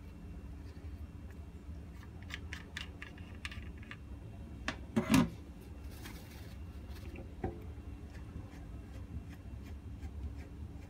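Plastic hose quick-connect fittings being handled and fitted to a kitchen faucet: scattered sharp clicks, with one louder clunk about five seconds in and a single click a couple of seconds later, over a low steady hum.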